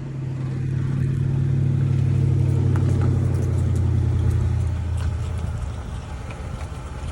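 2006 Honda CR-V running as it is driven on a test drive after a rear differential fluid change, a steady low engine and drivetrain drone that swells, then eases off after about four seconds. No grinding from the rear differential is heard.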